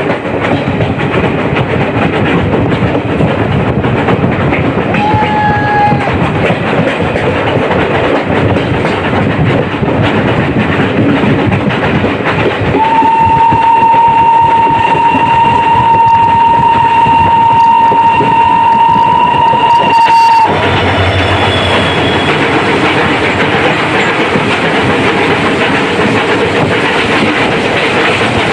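Fairy Queen steam train running, with steady rail clatter. A short whistle comes about five seconds in, and a long steady whistle blast lasting about eight seconds starts about thirteen seconds in, sounded while the train runs through a station.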